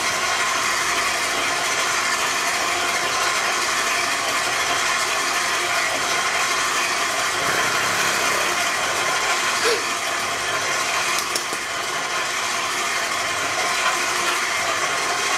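Electric stand mixer running steadily, its motor and gears driving the beater through a stiff cake dough of flour, sugar and margarine in a steel bowl.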